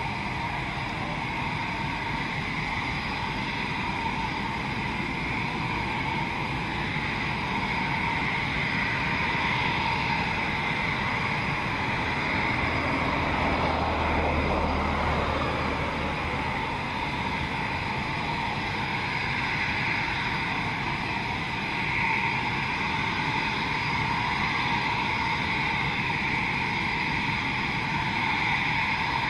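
Eurofighter Typhoon jets' twin EJ200 turbofan engines running at taxi power: a steady rushing noise with several high whining tones. A deep rumble swells for a few seconds about halfway through.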